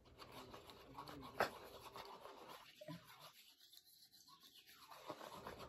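Faint sticky clicks of homemade slime being squeezed and pulled by hand, dropping to near silence for a couple of seconds in the middle.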